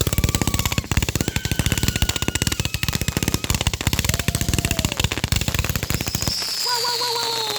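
A firework going off in a rapid string of crackling pops, with whistling tones over them. Near the end the popping stops and warbling, falling whistles go on.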